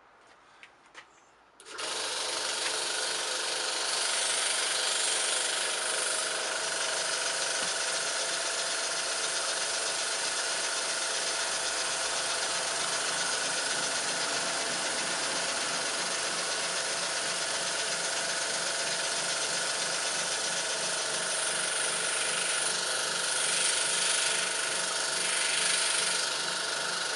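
A couple of faint clicks, then about two seconds in a small electric airbrush compressor starts and runs loudly and steadily, a hell of a racket. It drives a model single-cylinder vertical steam engine running on compressed air, whose fast, even beat lies under the compressor's noise.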